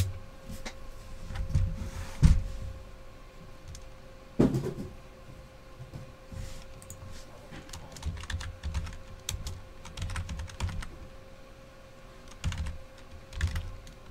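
Typing on a computer keyboard: clusters of key clicks and light thuds that come in bursts. A few louder knocks stand out in the first five seconds.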